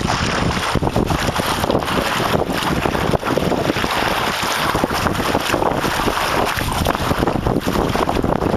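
Wind buffeting the camera microphone in constant gusts, mixed with water splashing and lapping close by.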